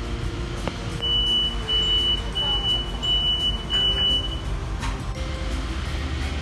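Commuter train door-closing warning: five high, evenly spaced beeps, each about half a second long, signalling that the coach doors are about to shut. A thump follows near the end, over the steady low rumble of the standing train.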